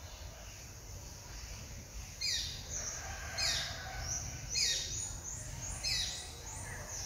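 A bird calling in a series of about five short, falling chirps, roughly one a second, starting about two seconds in, over a low steady background rumble.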